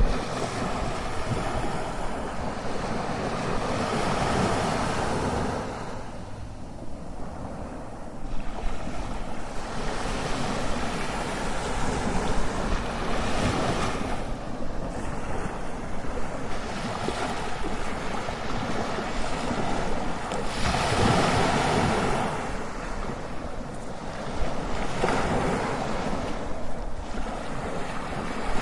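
Ocean waves crashing continuously, rising in surges and falling back every few seconds.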